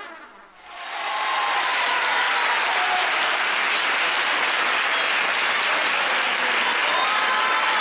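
Audience applauding steadily, the clapping building up about a second in as the last of the music dies away.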